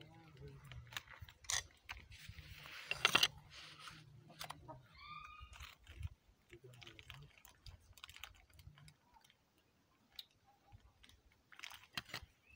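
Rabbits chewing and tearing fresh green stems, a run of small irregular crunching clicks. A louder rustle comes about three seconds in, and a short high chirp about five seconds in.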